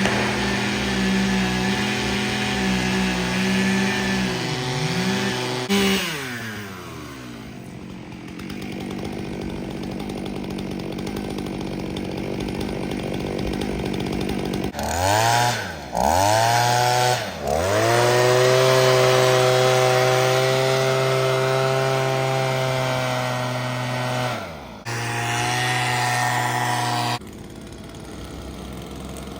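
Gasoline chainsaw running at high revs. It dies down about six seconds in, then is revved in two quick blips and held at full throttle, with a few abrupt changes near the end.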